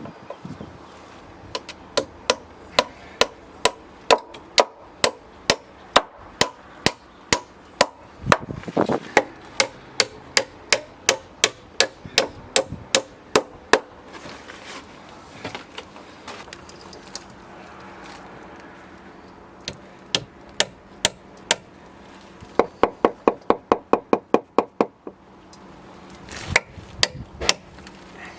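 Hammering: steady runs of hammer blows, about two to three a second, with a pause midway and a quicker run of lighter blows near the end.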